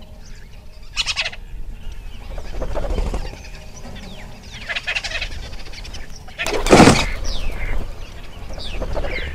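Woodland ambience of bird calls and chirps over a low rumble, broken by short noisy bursts; the loudest burst comes about seven seconds in.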